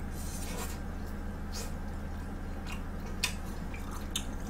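Close-miked chewing of a bite of pizza: soft wet mouth sounds with several short clicks and smacks, over a steady low hum.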